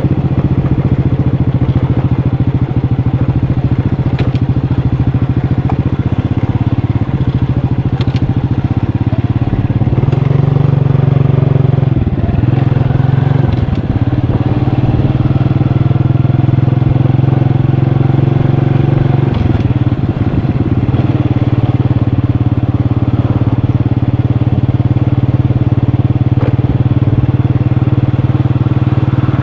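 Motorcycle engine running steadily under way. The engine note drops and picks up again a couple of times, a third of the way in and again past the middle, as the rider eases off and opens the throttle.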